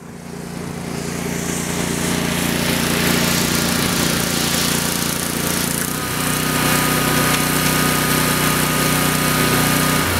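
Small gas engine of a pressure washer running steadily, with a hiss of spray over it. About six seconds in the engine's hum shifts slightly and a thin steady whine comes in.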